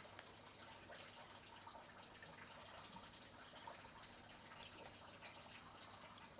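Faint trickle and scattered light drips of cooking oil being poured into a pan.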